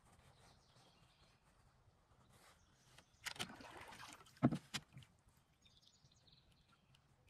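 Canoe paddle stroke: a swish of water as the blade pulls through about three seconds in, followed by a few sharp knocks. Faint bird chirps come a little later.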